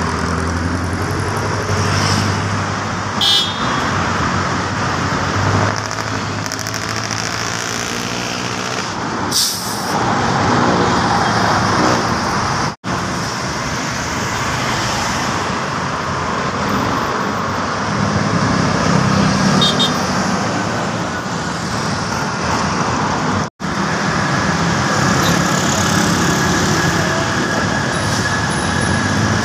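Steady road traffic on a busy city avenue, with cars, jeepneys and buses passing and engines rumbling. There are a couple of short horn toots early on, and the sound drops out for an instant twice.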